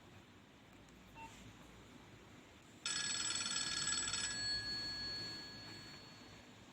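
A Nokia 2600 classic's loudspeaker playing a short ringtone. About three seconds in, a sudden bright ring made of several tones with a rapid trill sounds for about a second and a half, then rings down and fades over the next two seconds.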